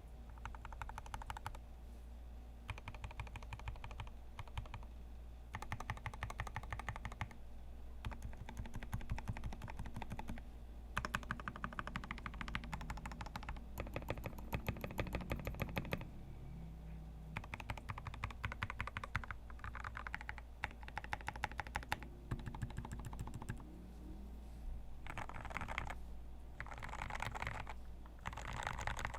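Typing on a Royal Kludge RKG68 65% mechanical keyboard: fast runs of key clicks and clacks in bursts of a second or a few seconds, with short pauses between them.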